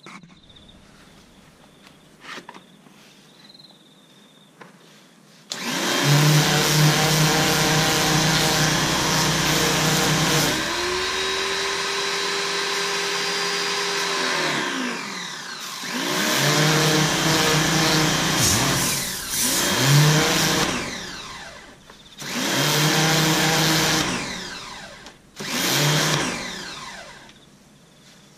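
Electric pressure washer running while spraying a rifle stock: after a few quiet seconds the motor starts and runs for about nine seconds, then starts and stops in four shorter bursts, its pitch dropping away each time it stops.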